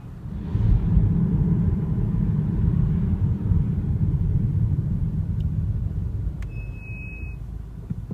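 BMW F30 320i brakes giving one short high-pitched squeal, lasting under a second, about six and a half seconds in. Under it runs a low rumble from the moving car that swells about half a second in and fades toward the end.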